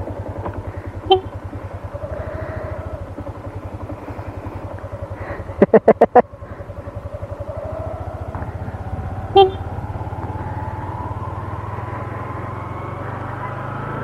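Motor scooter engine idling with a steady fast pulse, then rising in pitch from about eight seconds in as the scooter pulls away. About six seconds in come four rapid loud horn toots, with single short beeps about one second and nine seconds in.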